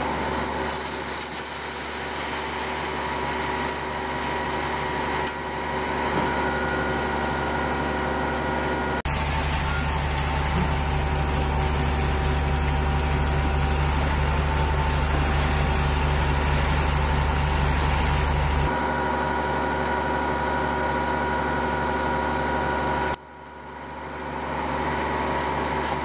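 Concrete boom pump truck's diesel engine running steadily while pumping concrete, a continuous mechanical drone. It gets a heavier low rumble from about 9 to 19 seconds in.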